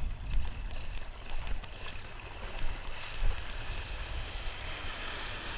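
Wind buffeting the microphone in uneven gusts over the hiss of small waves washing up the beach.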